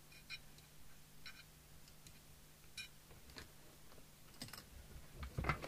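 A few faint, scattered clicks and taps of tools and fittings being handled on an open CB radio, then a louder clatter near the end as the radio set is picked up and moved.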